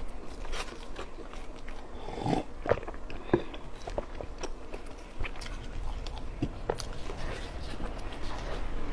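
Close-up eating sounds of someone biting into and chewing a large steamed bun (baozi): irregular wet mouth clicks and smacks, a few louder ones in the middle.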